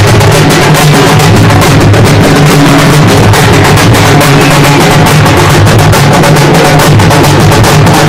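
Halgi frame drums beaten by a group of players: a very loud, rapid, unbroken beat over a steady low ring from the drumheads.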